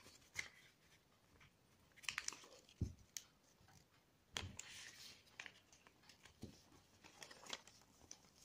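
Faint rustling and crinkling of coloured paper being folded and creased by hand, in short scattered bursts, with a few soft thumps.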